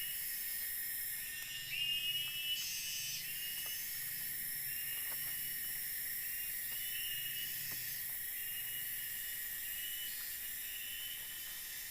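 Forest insects, likely cicadas, making a steady high buzz with short chirps repeating about once a second.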